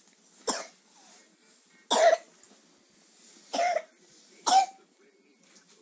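A young child coughing: four short, separate coughs spread over several seconds, a lingering cough while recovering from an illness.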